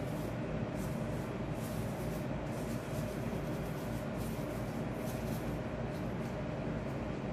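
Steady low rumbling background noise at an even level, with faint brief hissy streaks in the highs.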